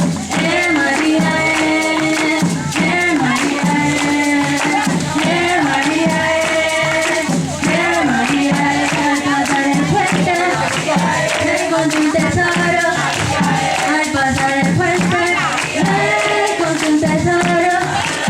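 Music with singing voices over shaken percussion such as a rattle or tambourine keeping a steady beat.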